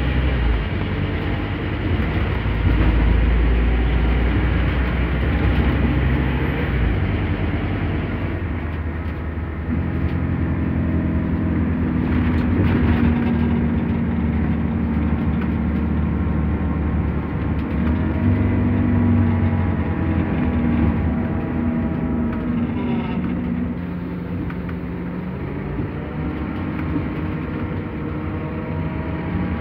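The Scania DC9 270 hp five-cylinder diesel of a Scania K270UB bus, heard from inside the bus while it drives. The engine note changes pitch several times and glides briefly near the end.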